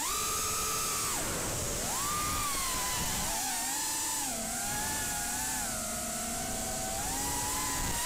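FPV racing quadcopter's RCX 2205 2633 kV brushless motors spinning DAL 4-inch tri-blade bullnose props on a 4S battery: a high whine that keeps dipping and climbing in pitch as the throttle is chopped and punched.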